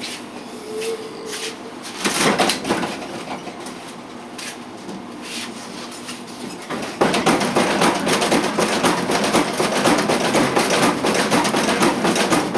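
Vending machine being shaken and banged by hand to free a stuck item: a few separate knocks, then from about seven seconds in a loud, continuous rattling.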